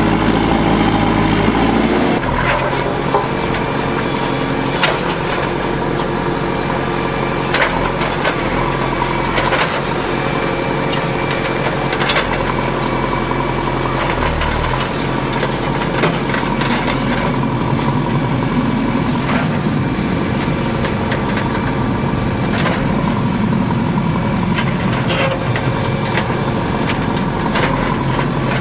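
JCB backhoe loader's diesel engine running steadily while it digs into a stone wall, with repeated short knocks and clatters of stone and steel throughout. The engine sound is strongest for the first two seconds, then drops to a lower steady drone.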